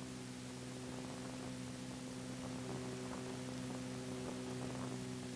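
Steady electrical mains hum with faint hiss on the soundtrack of a crude film-to-digital transfer, with no music or narration over it.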